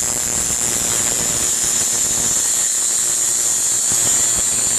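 Dremel rotary tool running steadily at high speed, its grinding stone sharpening a twist drill bit.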